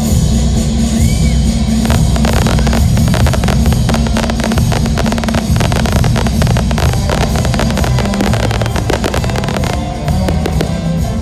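Loud drum-driven rock music soundtrack playing during a fireworks show, with many sharp cracks and pops of bursting fireworks throughout. The music switches abruptly from a soft ambient passage to the driving beat right at the start.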